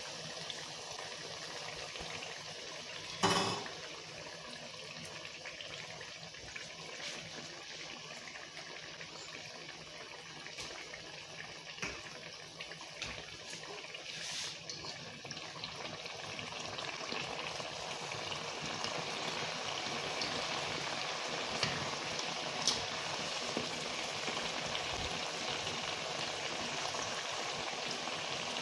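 Mandazi dough frying in a deep pan of hot oil, a steady bubbling hiss that grows slowly louder through the second half. There is one sharp knock about three seconds in and a few light clicks.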